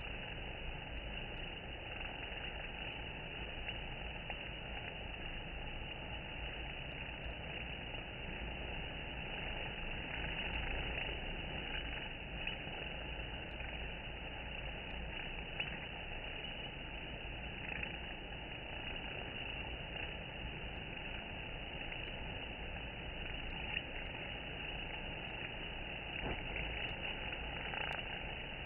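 Honeybees buzzing around a hive entrance, a steady, even hum without breaks.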